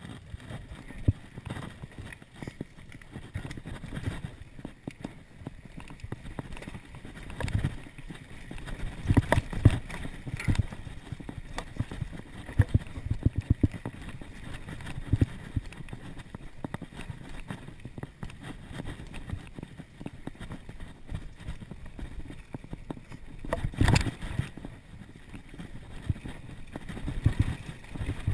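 Mountain bike rattling and knocking as it is ridden fast over a bumpy dirt trail, with irregular jolts and clatters, the hardest about 24 seconds in, over a low rumble of tyres on dirt.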